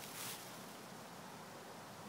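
Faint rustling of dry fallen leaves as a toy poodle noses and paws through them, with one brief louder rustle just after the start.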